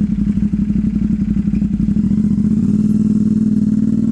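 Motorcycle engine running with an even, pulsing beat, then revving up a little about two and a half seconds in as the bike pulls away into a slow turn.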